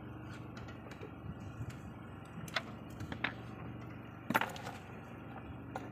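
A few separate light clicks and knocks, the loudest about four and a half seconds in, over a steady low hum.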